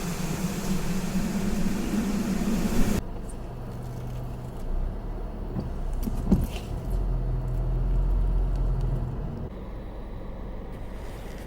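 Hurricane wind and heavy rain as a loud, steady hiss, cut off abruptly about three seconds in; then a vehicle's low engine hum and rumble, with a few knocks.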